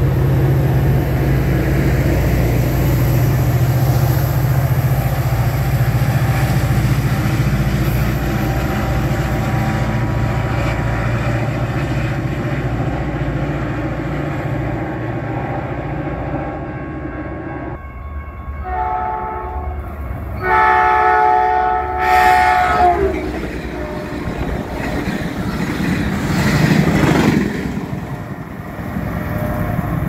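A Caltrain commuter train rumbles past and fades away, then its multi-tone horn sounds in a few blasts a little past halfway, the last and loudest about three seconds long. A rushing noise swells and fades near the end.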